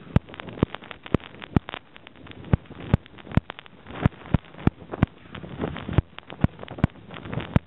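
Knocks and rustling from a camera being carried: sharp, irregular clicks about three times a second as it bumps against clothing, over wind on the microphone.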